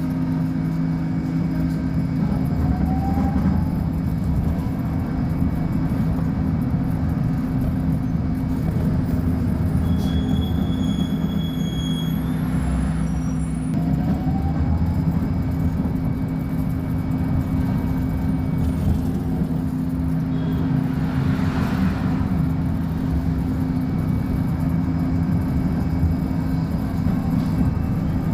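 Diesel engine of a Volkswagen 17-280 OT bus running steadily at a constant speed, with a brief high-pitched whine about ten seconds in.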